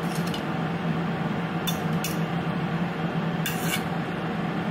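A metal fork scraping and clinking against ceramic plates as broccoli is pushed from one plate onto another, in about four short strokes over a steady low hum.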